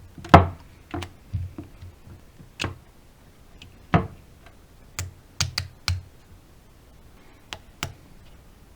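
Irregular sharp snaps and taps, about a dozen, unevenly spaced, the loudest about a third of a second in: the bands that held the freshly glued iPhone 8 together being pulled off and the phone handled.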